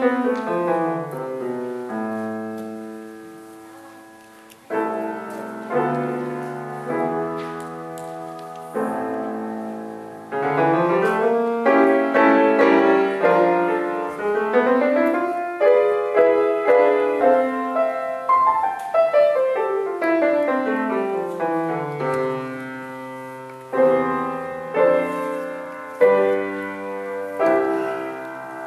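Solo grand piano playing a fast classical piece: rapid scale runs sweeping down and up the keyboard. It fades quiet about four seconds in, then breaks into sudden loud chords and a long loud stretch of runs, with hard accented chords near the end.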